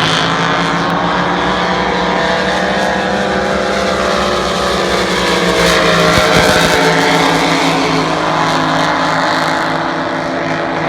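Several racing boats' engines running loud at high revs, their pitches sliding up and down as the boats pass, with a louder, noisier stretch about six seconds in.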